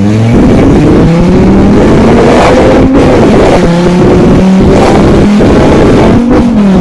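Fiat Marea HLX's five-cylinder engine running with no exhaust fitted, very loud and raw as the car accelerates hard, its pitch climbing and dropping back several times. Wind buffets the microphone.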